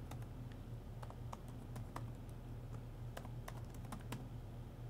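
Computer keyboard being typed on, irregular key clicks as a command is entered, over a steady low hum.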